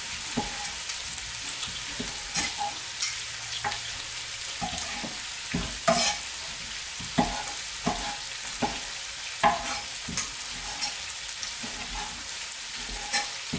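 Cleaver knocking on a wooden cutting board as ribeye steak is sliced, in irregular strokes every half second to a second, over a steady hiss.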